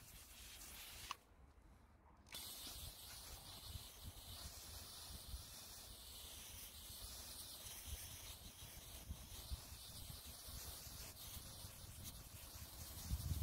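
Garden-hose spray nozzle rinsing cleaning foam out of an air-conditioner filter mesh: a faint, steady hiss of water spray. It drops away briefly about a second in and returns about a second later.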